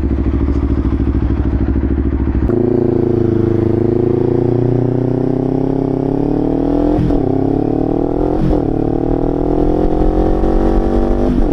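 2025 Kawasaki Ninja 500's parallel-twin engine through a Leo Vince LV Corsa exhaust. It runs steadily at low revs for a couple of seconds, then pulls away with its note rising gradually, broken by three quick gear changes.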